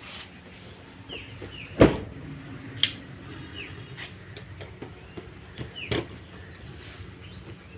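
Mahindra Marazzo M2 doors being shut: a solid slam about two seconds in, a lighter thud a second later, and another slam near the six-second mark. Small birds chirp in between.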